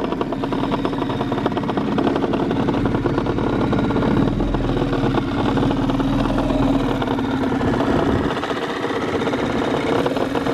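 Small tiller-steered outboard motor on an inflatable dinghy, running steadily in gear and pushing the boat along.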